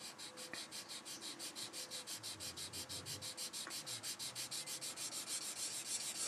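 A 240-grit sanding stick rubbed back and forth in quick straight strokes along the seam line of a clear plastic model canopy, to sand the seam away. A faint, rhythmic scratching at about seven strokes a second, growing a little louder near the end.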